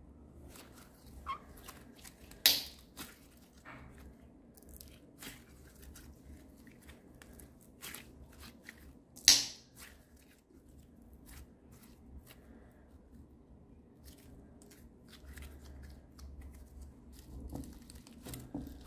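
Hands stretching and squeezing a clear glitter slime: sticky crackling and clicking, with two loud pops about two and a half and nine seconds in.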